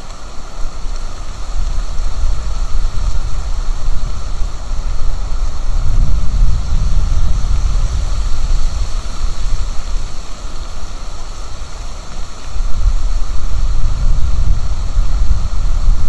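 Wind buffeting an outdoor nest-camera microphone: a low gusting rumble that swells about six seconds in and again near the end, over a steady hiss.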